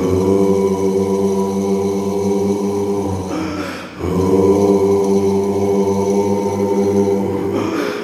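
Music of sustained choral chanting, a held vocal drone. Each note is held about four seconds, and the next begins after a short breathy rush, about four seconds in and again at the end.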